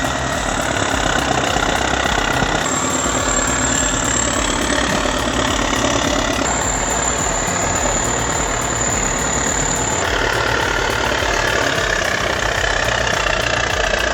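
Heavy bulldozer diesel engines running under load, a steady mechanical rumble whose character changes abruptly several times.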